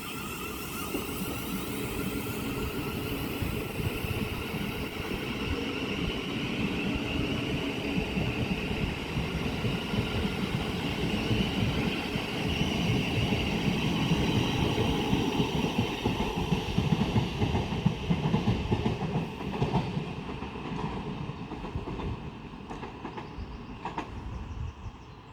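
Thameslink Class 700 electric multiple unit pulling out and accelerating away with an electric traction whine. It is loudest around the middle, then fades as it leaves, with a few wheel clicks over rail joints near the end.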